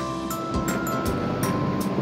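Background music with held notes over a light, steady beat.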